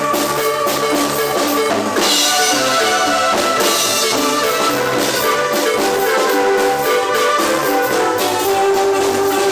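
Guatemalan marimba ensemble playing a lively piece, with drums keeping a steady beat.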